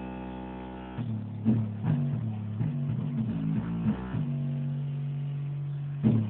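Guitar music with bass playing on a Volkswagen Gol's car sound system: a held chord, then a run of shorter notes and a long low note near the end.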